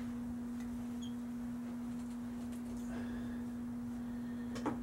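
A steady low hum at one unchanging pitch, with a faint overtone, runs throughout. Faint handling clicks and a brief knock come near the end as a rifle is set down.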